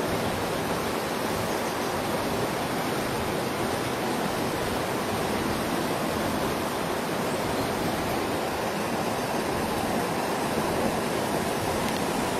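River water flowing, a steady, even rush.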